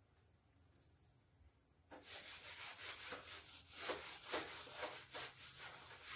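Whiteboard being wiped with a handheld eraser: faint, quick back-and-forth rubbing strokes that start about two seconds in.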